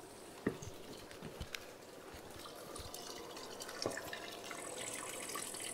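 Faint trickle and splash of water running out of a hose during flushing of a freshly drilled shallow well, with a few light knocks.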